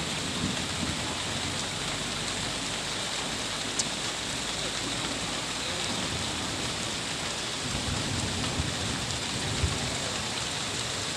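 Heavy rain falling in a steady, dense hiss. A sharp tick sounds about four seconds in and a dull knock near the end.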